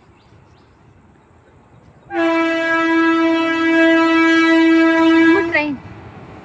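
Train horn sounding one long, steady blast of about three and a half seconds, starting abruptly about two seconds in and sagging briefly in pitch as it cuts off.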